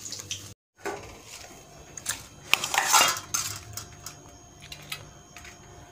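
Steel plates and utensils clattering: a run of clinks and knocks, loudest about two to three seconds in. The sound drops out for a split second near the start.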